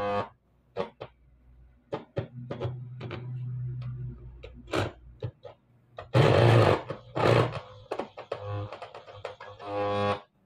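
Background music, under a small handheld DC-motor drill boring holes in an aluminium heatsink: a low motor hum and scattered sharp clicks.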